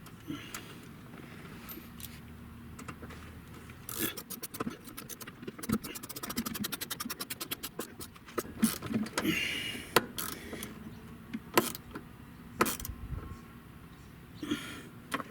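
Ratchet wrench clicking rapidly for about four seconds as a small bolt is run in, starting about four seconds in. After it come several separate metallic knocks and clinks of tools and parts.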